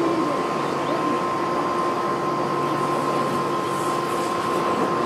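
Steady hum and rush of air from the blower on a homemade coal forge, with a constant motor whine; no hammer blows.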